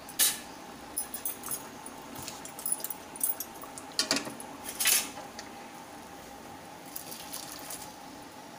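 Metal clinks and knocks as a metal kadai of dal is gripped with pan tongs and lifted off a gas stove burner: a scatter of light clicks, with two louder clanks about four and five seconds in.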